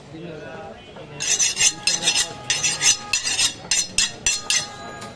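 A butcher's knife and cleaver scraped against each other in quick strokes, about three or four a second, starting about a second in, with a faint metallic ring: the blades being honed edge on edge.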